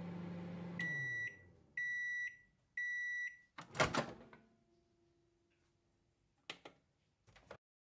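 Microwave oven running with a low hum that drops in pitch and dies away as it stops. Three half-second beeps then signal that cooking is done. A loud clunk about four seconds in comes as the door is opened, and a few small clicks follow near the end.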